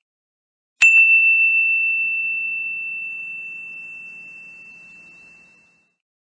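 Old phone ringtone: a single high chime struck about a second in, ringing on as one pure tone that fades out over about five seconds.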